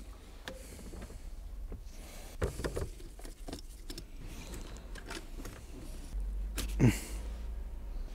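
Scattered knocks and clicks of hands and tools working on the car's interior trim, the loudest a knock about seven seconds in.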